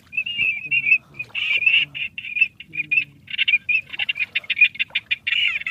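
Duck calls: a rapid chatter of short, high, repeated notes that keeps going and grows busier and denser from about three seconds in.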